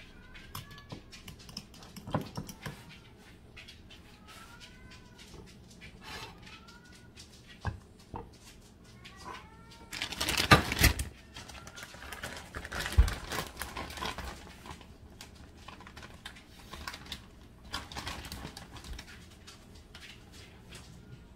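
A cat mewing softly, about eight short rising-and-falling calls over the first ten seconds, over light clicks and clinks. About ten seconds in comes a louder clatter of a spoon, jam jar and plate on the counter, with another sharp knock a couple of seconds later.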